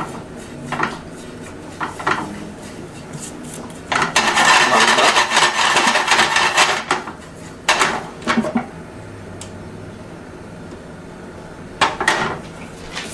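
A spoon stirring and scraping grated coconut as it dry-roasts in a pan, with metal clinks and knocks against the pan. There is a louder stretch of continuous scraping for about three seconds, a few seconds in.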